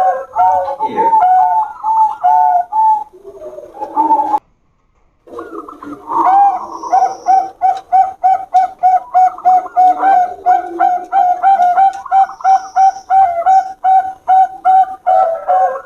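Zebra doves of the Bangkok perkutut line cooing together, their rapid, repeated coo notes overlapping. The sound cuts out for about a second a few seconds in, then the cooing resumes.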